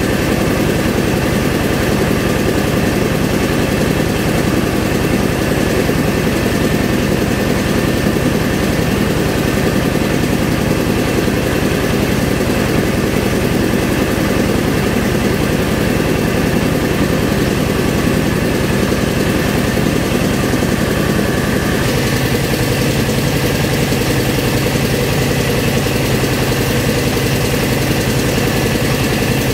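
Rice milling machine (a one-pass 'non-PK' paddy mill with no separate husker) running steadily while milling paddy, a loud continuous mechanical drone. Its tone shifts about three-quarters of the way through.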